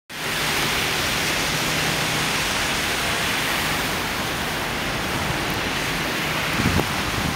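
Steady rushing noise of blizzard wind, with a few low thumps of wind buffeting the microphone near the end.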